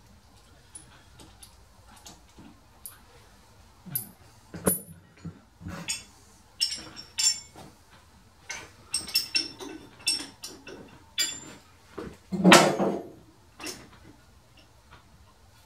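Steel parts and hand tools clinking and clanking on a metal lathe saddle as they are handled: an irregular string of sharp metallic knocks with a high ring. The loudest is a heavier clank about twelve and a half seconds in.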